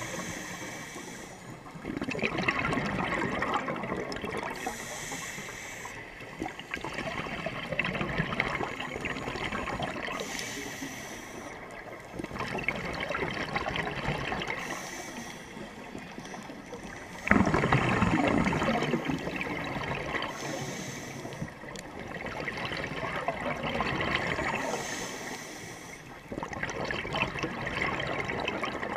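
Scuba regulator breathing underwater: a short hiss on each inhale, then a few seconds of bubbling on each exhale, repeating about every five seconds. The loudest exhale starts suddenly a little past halfway.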